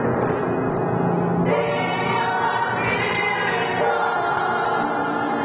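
Small gospel choir singing, voices held on long notes.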